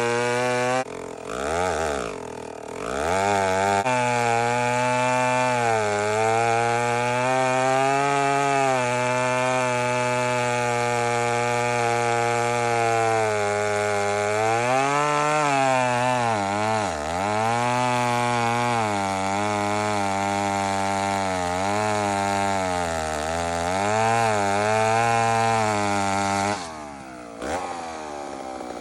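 McCulloch Mac 150, a 1959 80cc two-stroke chainsaw, running under load while cutting through a log. The engine pitch sags and recovers as the chain bites. It falls to low revs twice, near the start and near the end, before revving back up.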